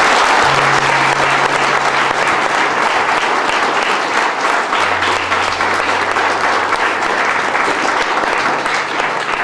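Audience applauding loudly, a dense, steady clapping, with a low steady note held underneath.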